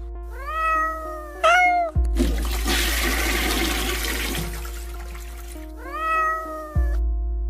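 A cat meowing, two long meows near the start and another about six seconds in. Between them is a rushing, water-like noise of about two seconds. Soft piano music plays underneath.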